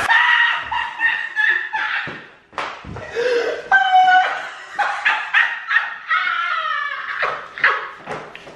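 Two people laughing and shrieking without words, reacting to the sharp sour taste of juice they have just gulped.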